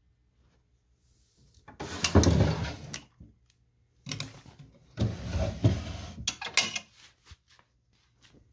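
Wooden drawers of an antique Berkey & Gay furniture piece sliding on their runners, wood scraping on wood, in two runs a second or so apart, the second ending in a few sharp knocks.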